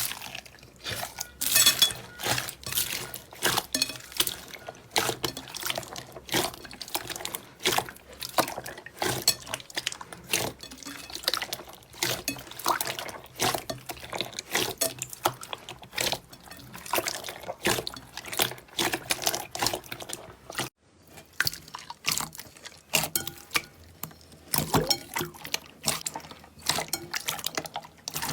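Slime being squeezed and pressed by hand, making a fast, irregular run of wet clicks and pops.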